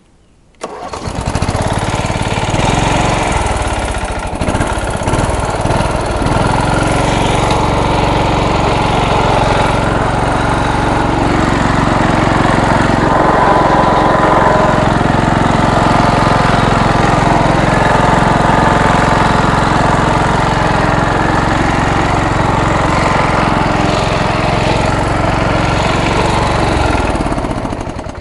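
MTD riding lawnmower's engine running hard under load as the mower is driven through a big mud hole. It comes in abruptly about half a second in and cuts off near the end.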